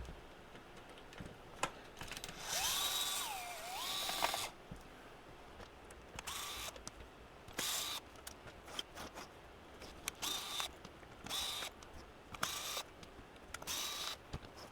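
Small cordless electric screwdriver whirring as it backs out screws, with small clicks and knocks of handling between runs. It runs once for about two seconds, its pitch sagging and recovering midway as the motor is loaded, then in about six short bursts.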